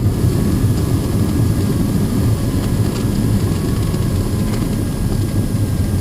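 Cessna 172N's four-cylinder piston engine and propeller droning steadily as heard inside the cabin, at power for a go-around climb-out.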